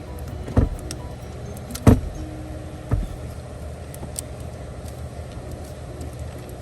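Three sharp knocks about a second apart, the middle one loudest, over a steady low hum.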